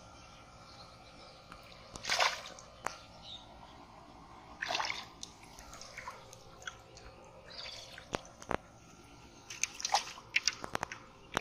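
Shallow muddy water splashing and sloshing as a fish is grabbed by hand and lifted out, water dripping off it; two loud splashes about 2 and 5 seconds in. Near the end a quick run of splashes as a fish thrashes in a pot of water.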